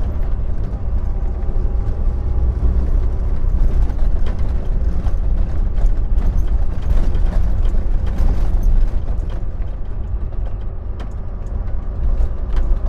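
Inside a Volvo semi-truck's cab while driving: a steady low engine drone with frequent light rattles and clicks from the cab, busiest in the middle of the stretch.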